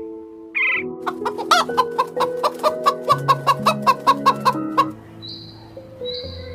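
A fowl clucking in a quick run of short, sharp calls, about four a second, over background music.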